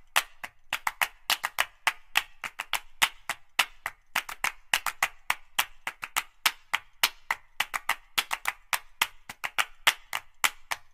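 Percussive backing track of quick hand claps and wood-block-like clicks, about six or seven a second in a steady rhythm, without any tune.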